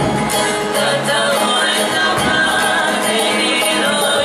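Live Cook Islands dance music: group singing over strummed string instruments and drums, with a steady beat.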